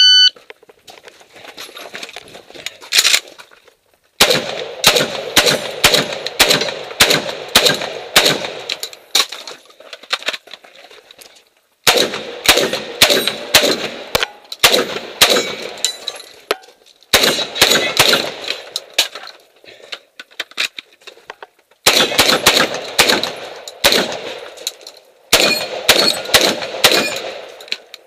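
A shot-timer beep, then a modified Saiga 12 semi-automatic 12-gauge shotgun with a muzzle compensator firing a stage. There is one shot about three seconds in, then five fast strings of about two to three shots a second, separated by short pauses.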